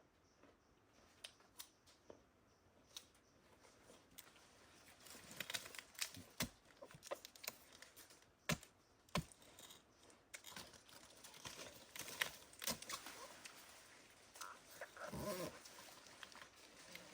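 Irregular crackling, snapping and tearing of fibrous plant material being handled and stripped, with a few sharp knocks in the middle and a short low pitched sound near the end.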